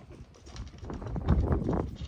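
A dog eating dry food from a stainless steel bowl: quick, irregular crunching and kibble rattling against the metal, busiest in the second half.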